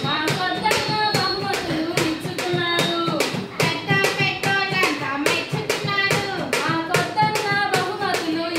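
Girls singing a Telugu song into a microphone to a steady rhythm of hand claps.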